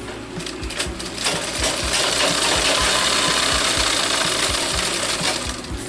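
Sewing machine stitching a seam through cotton fabric, its needle strokes ticking in a steady rhythm. It speeds up and gets louder about a second and a half in, then slows near the end.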